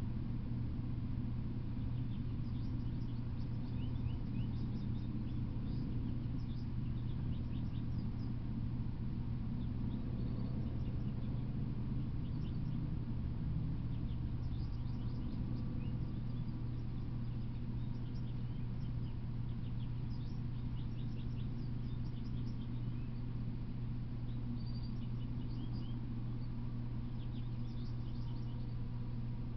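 Small birds chirping in short, high calls, again and again, over a steady low hum.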